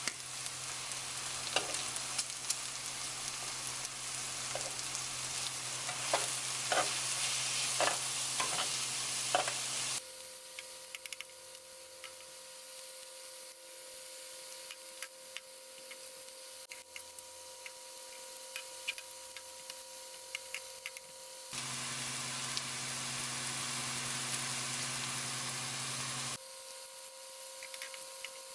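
Food frying in a hot pan: a steady sizzle with sharp crackles and pops, loudest in the first ten seconds and again later, with a quieter stretch in between.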